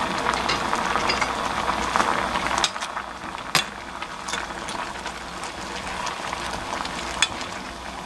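Spicy braising liquid bubbling at the boil in a stainless steel pot with chunks of bottle gourd, while a wooden spatula stirs the pieces and knocks sharply against the pot twice. The bubbling drops somewhat in loudness a little under three seconds in.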